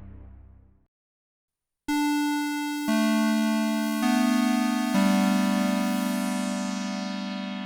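Earlier music fades out, and after about a second of silence, synthesizer notes come in one after another, about a second apart: four sustained tones that stack into a held chord and slowly fade.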